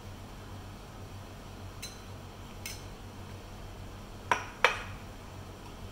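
A metal spoon clinks as boiled rice is spooned from a bowl into a drinking glass: two light clinks, then two sharp ringing clinks close together about four seconds in.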